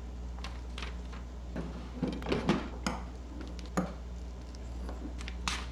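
Scattered clicks and scraping knocks of a cheese cutter being worked against paper, most of them bunched about two to three seconds in, over a steady low electrical hum.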